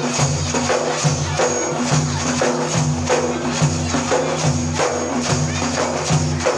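Frame drums with jingles beating a steady repeating rhythm, about two strikes a second, under a held low tone: the instrumental accompaniment of Iraqi madih singing, playing on between sung verses.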